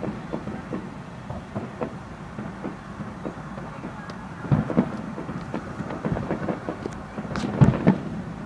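Fireworks bursting in the air from a distance: an irregular string of booms and pops over a rumbling background. The heaviest bangs come about halfway through and again near the end.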